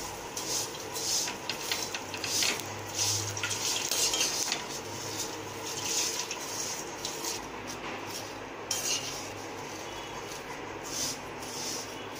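Metal ladle scraping and stirring dry vermicelli around a metal kadai as the vermicelli is roasted in a little oil, making repeated irregular scrapes and clinks. The strokes come thick for the first several seconds and grow sparser after.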